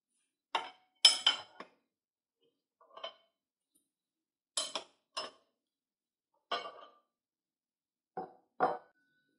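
Metal-on-metal clinks and taps from the steel bar and fittings of a manual tire changer as the duck head adapter is handled and unscrewed: about ten short, sharp knocks in small clusters spread over several seconds.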